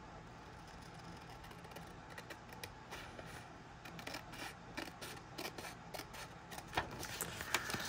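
Scissors snipping paper: a run of light, irregular clicks and snips beginning about two and a half seconds in, one louder snip near the end, trimming off a small loose piece of paper.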